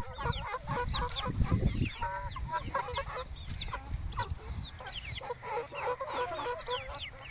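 A flock of young Aseel game chickens clucking and chirping, many short calls overlapping, some high and falling in pitch. A low rumbling runs underneath for the first couple of seconds.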